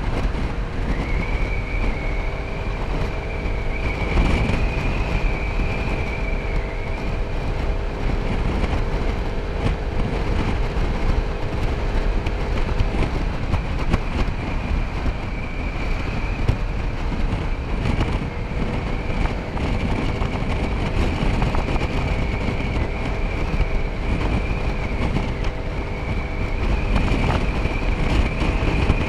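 Motor scooter riding at cruising speed: the small engine and drive run steadily with a thin high whine over them, and wind rushes over the microphone. The engine's lower hum breaks off about halfway through and returns some five seconds later.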